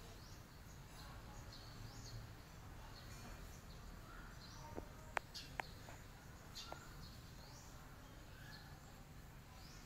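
Quiet outdoor ambience: faint birds chirping here and there over a low, steady background rumble, with a few sharp clicks about five seconds in.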